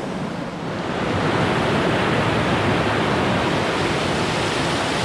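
Steady rush of a fast-flowing mountain creek tumbling over rocks, swelling louder about a second in and then holding.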